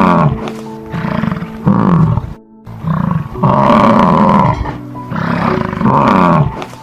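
Several loud, roar-like animal calls over background music, with a brief break about two and a half seconds in.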